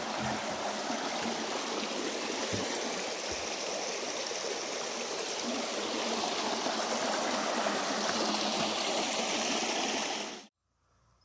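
Shallow woodland stream running over stones: a steady rush of flowing water that stops abruptly near the end.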